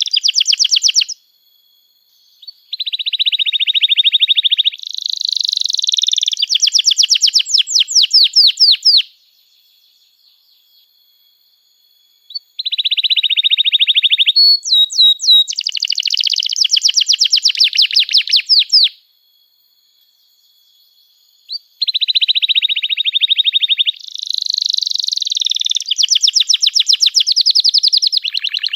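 Domestic canary singing in long bouts of fast trills and chirps, three phrases of several seconds each with short pauses between them.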